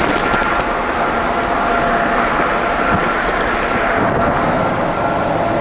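Steady road noise of vehicles driving at highway speed, an even rushing sound with a faint steady hum running through it.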